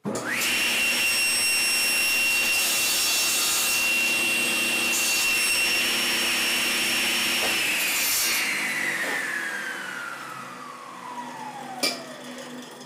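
Table saw switched on, its motor and blade spinning up quickly to a steady whine. The blade cuts through wood strips pushed through on a crosscut sled, trimming their ends. The saw is then switched off and the whine slides down in pitch as the blade coasts to a stop.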